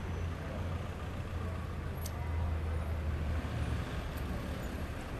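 Steady low rumble of outdoor background noise, with a single faint click about two seconds in.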